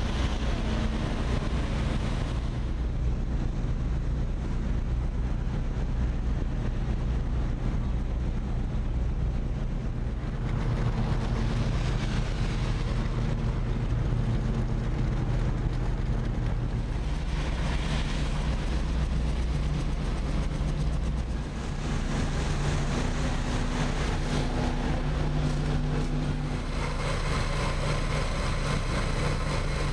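Heavy diesel machinery of fishing boats and trucks at the quay, running steadily as a low drone with a few steady hum tones.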